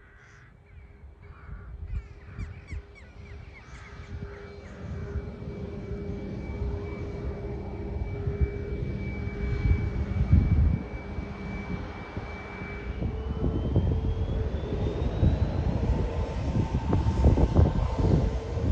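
Aircraft engines running with a steady whine over a low rumble, growing louder throughout. About two-thirds of the way in, a high whine begins rising in pitch. Crows caw in the first few seconds.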